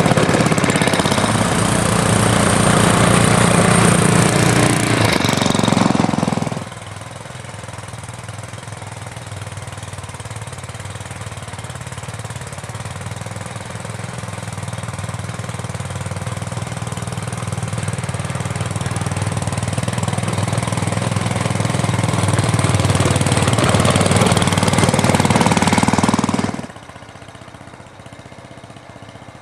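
Small engine of a 12-inch-gauge boxcab locomotive running as it pushes a snowplow along the track. It is loud at first, cuts off abruptly about six seconds in, then comes back quieter and grows steadily louder as the locomotive approaches, before dropping away sharply near the end.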